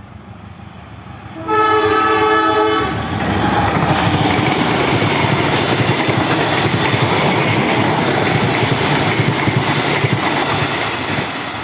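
Diesel locomotive's horn sounding one blast of a little over a second, several tones at once, followed by a passenger train running close past at speed with a loud, steady rushing rail noise that eases slightly near the end.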